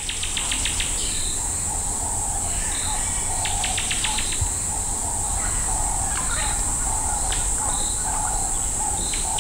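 Bush ambience: a steady high-pitched insect drone, with scattered short chirping calls and two brief rapid clicking trills, one at the start and one about three and a half seconds in.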